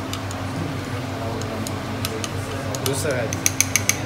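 Glassware clinking in a lab: scattered light ticks, then a quick run of about five sharp, ringing clinks near the end, over a steady low hum.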